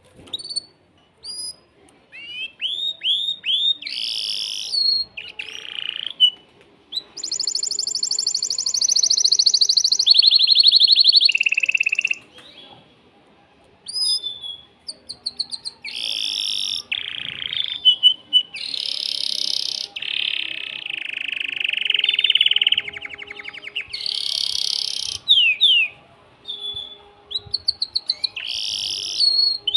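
Male canary singing an excited breeding song: runs of quick repeated falling notes and long fast trills, with a pause of about two seconds a little before halfway.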